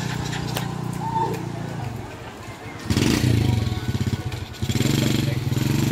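Small motorcycle engine running at idle, then revved harder about three seconds in as it pulls away.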